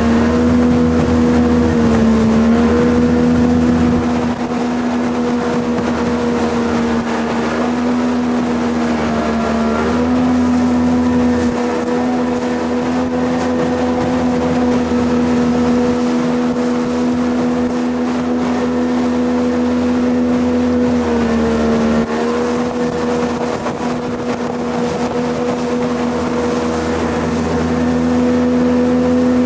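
Jet boat engine running at a steady, high speed under way, with water and wind noise. Three times its pitch sags briefly and comes back up.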